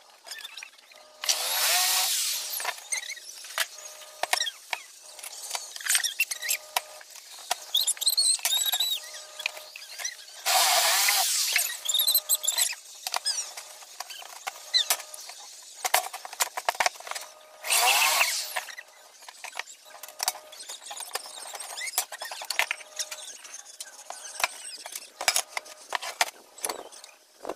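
Cordless drill driving screws into an aluminum window frame in three main short bursts, its motor pitch rising and falling, with clicks and knocks of the aluminum profiles being handled in between.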